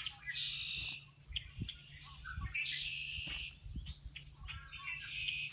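Black-capped chickadees calling: three runs of harsh, buzzy 'dee-dee' notes, near the start, in the middle and near the end, over a low steady hum.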